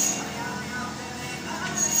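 Steel plastering trowel scraping across wet gypsum plaster on a wall, in long hissing strokes: one stroke ends just after the start and another begins near the end. Music plays in the background.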